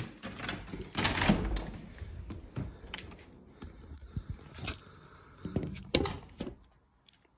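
A door being opened and shut, heard as a run of knocks and clunks over rustling from the phone being handled. The loudest clunks come about a second in and near six seconds, and it goes quiet near the end.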